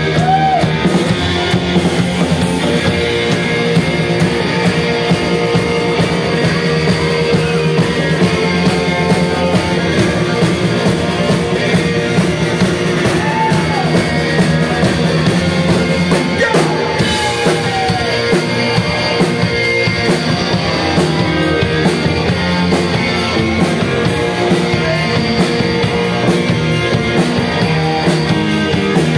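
Live rock band playing loudly: two electric guitars, an electric bass and a drum kit.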